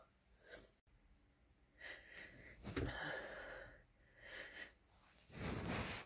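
A person building up to a sneeze: a run of hitching, wheezy gasping breaths, with the loudest, noisier burst of breath near the end.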